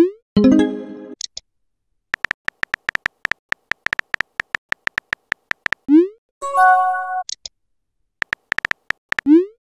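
Texting-app sound effects: runs of quick keyboard tap clicks as a message is typed, then a short rising 'bloop' as it is sent and a brief chime-like notification tone. This happens once about a second in, again with a long typing run before a send and chime near 6 s, and with a short typing run before another send sound near the end.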